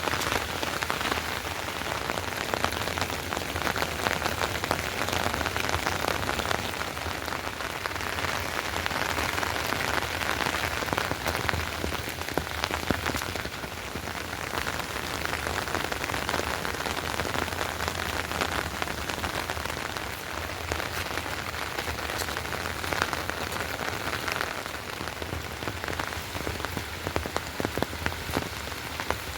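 Heavy rain falling, a steady dense patter of many drops.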